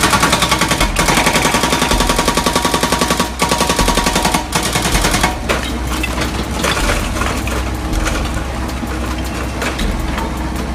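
Excavator-mounted hydraulic breaker hammering on rock in a fast, even run of blows, which stops about five seconds in, leaving the excavator's engine running.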